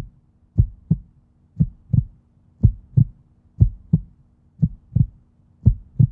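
Heartbeat sound effect: low double thumps, about one pair a second.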